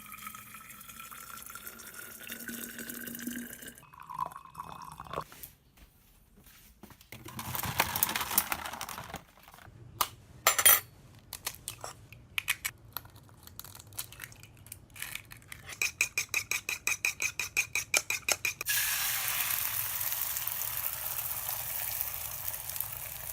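A string of small handling sounds, with scattered clicks and knocks, a loud knock about ten and a half seconds in, and a quick run of even clicks, ending in about five seconds of steady running water.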